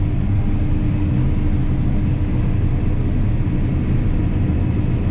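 Combine harvester running steadily: a constant low engine drone with a steady hum.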